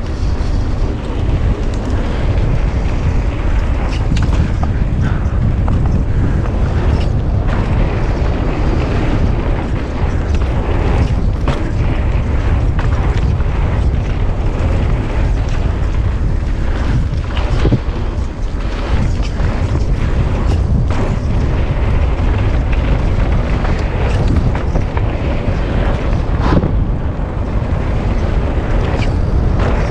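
A mountain bike riding fast down a dirt singletrack trail, with heavy wind buffeting on the bike-mounted camera's microphone and frequent short knocks and rattles from the bike over bumps and rocks.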